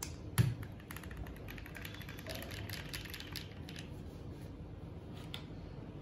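Keys pressed on a Tofu65 mechanical keyboard fitted with CMK Peach Blossom keycaps. There is one heavier thump just under half a second in, then a quick run of clacks, and a couple more near the end.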